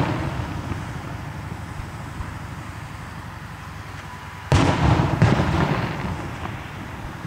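Aerial fireworks shells bursting. The rumble of an earlier burst dies away, then about four and a half seconds in come two sharp booms about half a second apart, each trailing off over a second or so.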